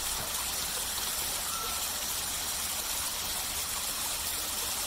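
Steady rushing water.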